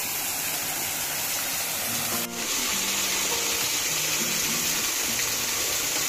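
Small waterfall splashing steadily, a constant rush of falling water. About two seconds in there is a brief break, after which the rush is brighter and closer, water pouring down right at hand.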